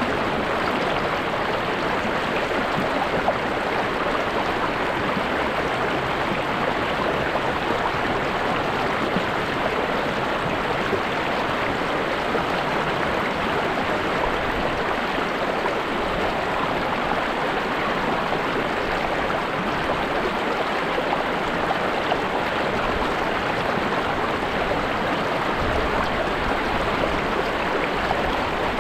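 River water flowing and babbling steadily, an even rushing noise that keeps up without pause.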